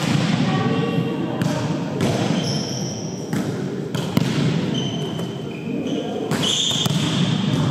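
Volleyball rally on an indoor court: the ball is struck with hands and forearms several times, each hit a sharp slap. A few short high squeaks come from sneakers on the court floor, over a low murmur of players' voices.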